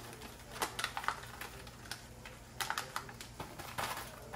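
Dry clicks and rattles in three short clusters as a packet of rice mix is shaken and tapped to get the seasoning out from the bottom.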